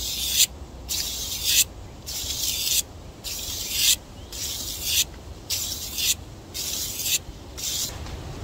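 A knife blade stroked across 1200-grit sandpaper in about eight even, rasping strokes, roughly one a second, each about half a second long.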